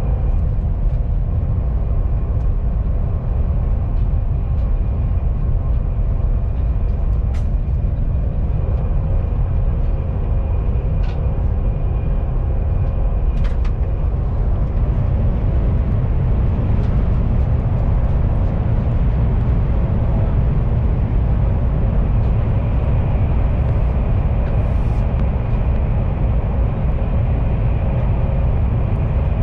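Steady low rumble and hum inside a KTX high-speed train carriage running at speed, with a faint steady whine over it and a few small clicks and rattles.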